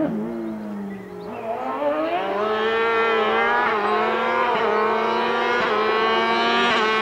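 Sport-prototype race car's engine at high revs. The pitch falls for about a second, then climbs and runs up through the gears, with a brief dip at each upshift about once a second.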